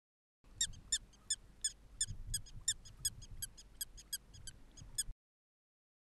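Black-tailed prairie dog giving a rapid series of short, high-pitched chirping calls, about four a second, stopping suddenly near the end.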